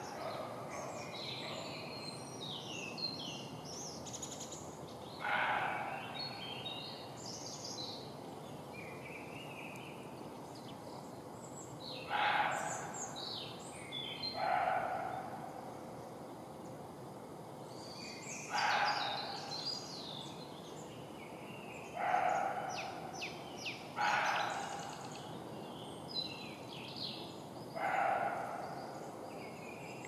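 Roe deer barking, about seven short, harsh, dog-like barks at irregular intervals of a few seconds. High bird chirps in between, mostly in the first few seconds.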